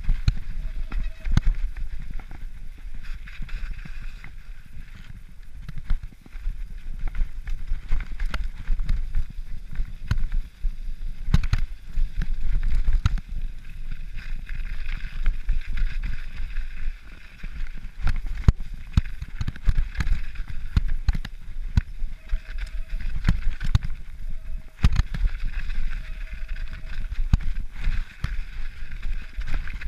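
Mountain bike descending a snowy, muddy trail: wind rumbling on the microphone, tyres hissing through snow and mud, and the bike rattling and knocking irregularly over bumps.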